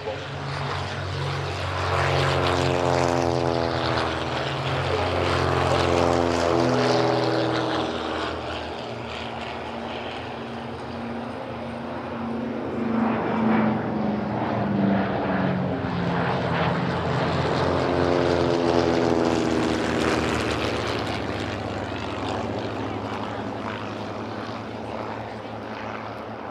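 Douglas DC-3 (C-47 Skytrain) flying past low with its twin Pratt & Whitney R-1830 radial piston engines and propellers droning. The drone swells twice, its pitch falling each time the aircraft goes by, then fades as it climbs away.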